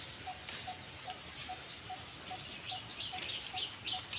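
Birds calling: a short low note repeated evenly about two and a half times a second, with higher chirps in the same rhythm joining about three seconds in.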